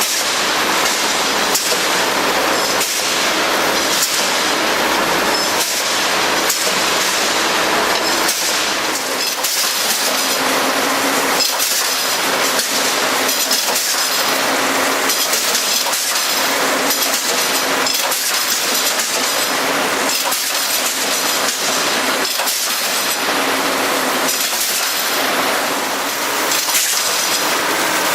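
Wire straightening and cutting machine running: a loud, steady rush of mechanical noise with frequent irregular clicks and knocks as the wire feeds through.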